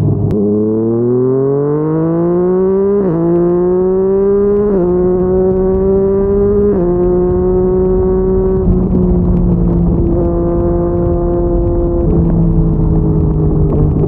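Yamaha MT-09's inline three-cylinder engine through a Yoshimura R55 slip-on exhaust, accelerating hard. The note climbs through the revs and dips briefly at each of several quick upshifts, rising less steeply in each higher gear.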